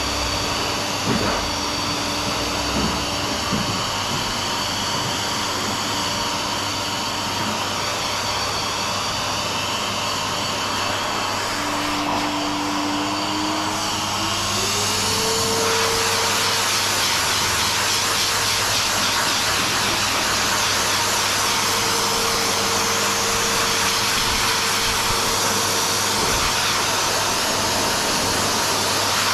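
High-velocity pet dryer blowing air through its hose and nozzle, a steady rushing noise. It was switched on at its lowest setting; about halfway through, its motor note rises and the sound grows a little louder as it speeds up.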